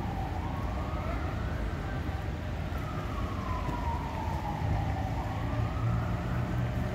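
Emergency vehicle siren in a slow wail, sliding up and down in pitch and rising and falling twice, over a steady low rumble.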